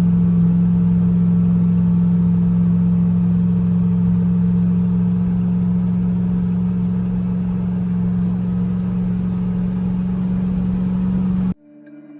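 Car engine running at a constant speed, a loud steady drone that holds one pitch throughout. It cuts off suddenly about a second before the end.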